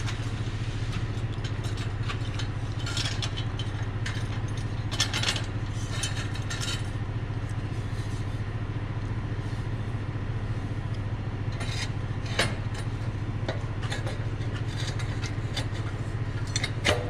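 Steel mid-muffler delete pipes and band clamps being worked onto the exhaust: scattered metal clinks and scrapes over a steady low hum.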